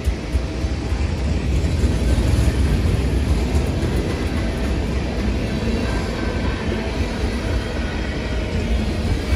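A train running by with a steady, loud low rumble.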